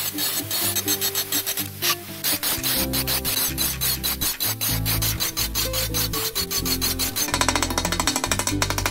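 Angle grinder scraping and scuffing across a ceramic tile in rapid strokes, over background music with a bass line.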